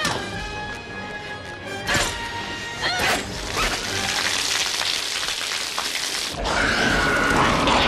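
Film score music mixed with action sound effects: sharp hits about two and three seconds in, then a loud noisy rush that cuts off suddenly a little past six seconds in.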